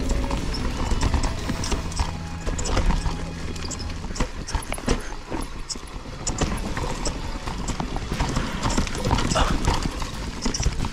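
Canyon Strive enduro mountain bike rattling down a rough, technical rocky trail: irregular knocks and clatter from the tyres, chain and suspension hitting rocks, over a low wind rumble on the helmet camera's microphone.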